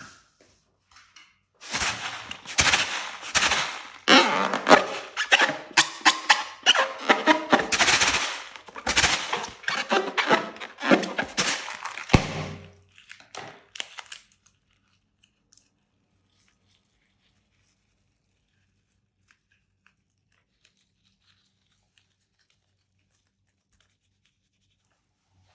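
Slime being squeezed and worked by hand: a quick, irregular run of squelching and crackling pops for about ten seconds that stops abruptly, then near silence.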